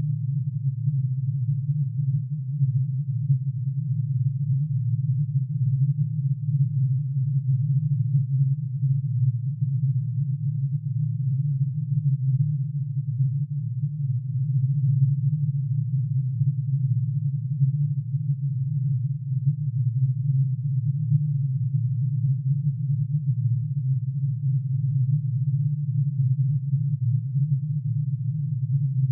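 Synthesized tone made by summing sine waves, one for each line in plutonium's atomic emission spectrum, pitch-shifted down into the audible range. It is a steady, unbroken low hum with a slight fluttering texture and no changes throughout.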